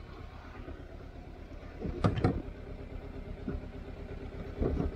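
Kawasaki Versys X300's parallel-twin engine idling steadily, with two sharp knocks about two seconds in.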